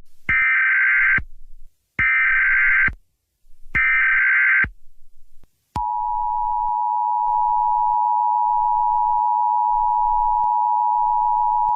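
Emergency Alert System tones: three short bursts of warbling data tones (the SAME header), about a second each with a pause between, then about six seconds in the steady two-tone EAS attention signal starts and holds.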